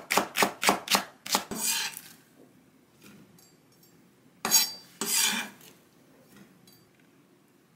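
Chef's knife chopping green onion on a wooden cutting board, quick knocks about four a second that stop about a second in, followed by the blade scraping the slices across the board. A few seconds later there are two more scrapes as the knife pushes the sliced onion off into a ceramic dish.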